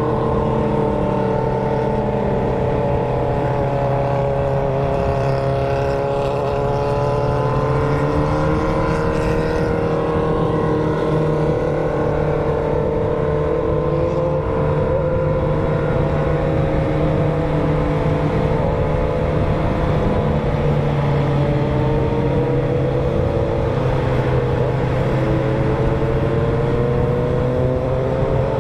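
Four-cylinder sport motorcycles with straight-through 4-into-1 exhausts running at a steady cruise. Their engine notes drift gently up and down, with more than one engine heard at once.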